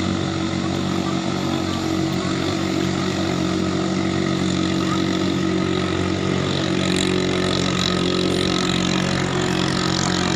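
A katinting longtail boat engine running steadily at an even pitch.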